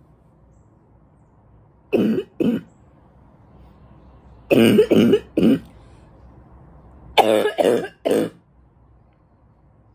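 A woman's congested, barking cough: eight coughs in three bouts, two about two seconds in, three in the middle and three more near the end. The congestion is what she puts down to allergies.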